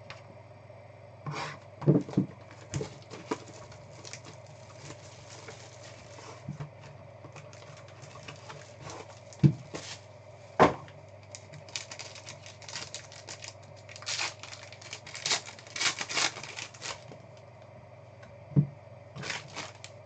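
A sealed trading-card box and its foil-wrapped pack being opened by hand: wrapper tearing and crinkling, with a few sharp knocks as the box and cards are set down on the table. The crinkling is densest in a run from about twelve to seventeen seconds in.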